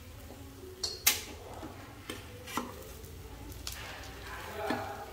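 A metal spoon stirring and scraping dried fish in a frying pan, with several sharp clinks of the spoon against the pan, the loudest about a second in. Near the end the fish is scraped out of the tilted pan onto a plate.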